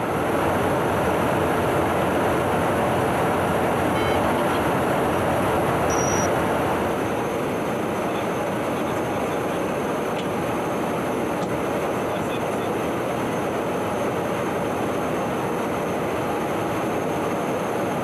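Steady rushing of airflow and engine noise heard inside a KC-135 tanker in flight, with a faint constant high whine. It eases slightly about six seconds in.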